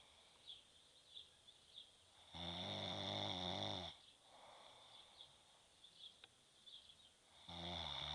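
A person snoring in sleep: one low snore about two and a half seconds in that lasts about a second and a half, a softer breathy exhale after it, and the next snore starting near the end.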